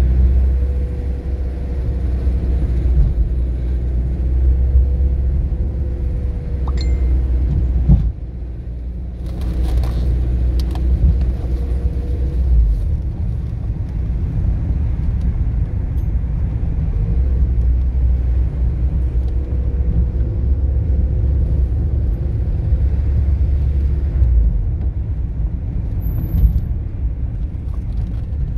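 A car being driven: steady low rumble of engine and tyres on the road, with a few light rattles and clicks.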